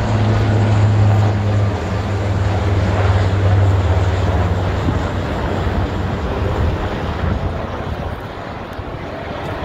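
HC-130J Combat King II turboprop flying with two HH-60 Pave Hawk helicopters, passing and moving away: a steady low propeller drone that fades through the second half as the formation recedes.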